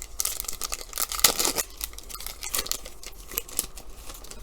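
Plastic trading-card pack wrapper and cards being handled: a dense run of crinkling and rustling for about the first second and a half, then lighter rustles and clicks.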